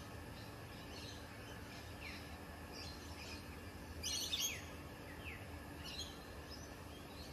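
Birds calling: many short, repeated, downward-sweeping chirps, with one louder, harsher call about four seconds in, over a low steady hum.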